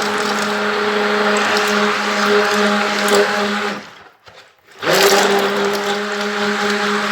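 Electric mixer running steadily as it beats melted margarine and honey. About four seconds in it stops for roughly a second, then starts again and quickly spins back up to speed.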